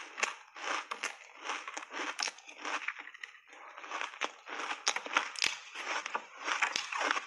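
Ice coated in matcha tea being bitten and chewed: crisp, uneven cracking and crunching of the ice in the mouth, about three crunches a second.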